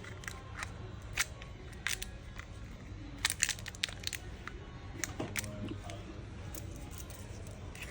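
Scattered light clicks and taps of small smartphone parts being handled and pressed into place as the battery connector is fitted and the battery set down, over a low steady hum.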